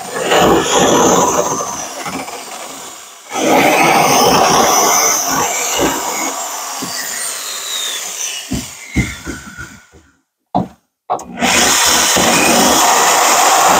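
Corded electric drill fitted with a small grinding wheel, grinding the edge of a hole in a pickup's bed floor to open it up so a fifth-wheel hitch pin will fit. It runs under load in long stretches, dips briefly about three seconds in, winds down and stops around ten seconds in with one short blip, then runs again near the end.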